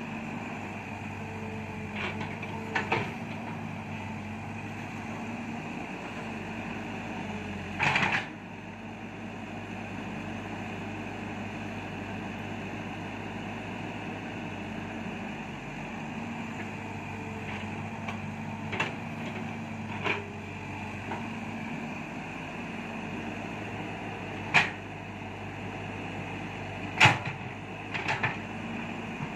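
Caterpillar 312 hydraulic excavator's diesel engine running steadily as the machine works, with a handful of sharp knocks, the loudest about eight seconds in and near the end.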